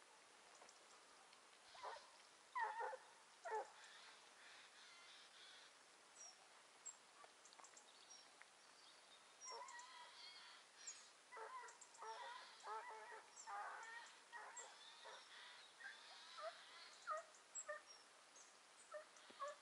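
Hunting hounds baying faintly in the distance, a few calls about two seconds in and then a longer run of overlapping calls from about halfway: the dogs giving tongue as they work a hare's trail.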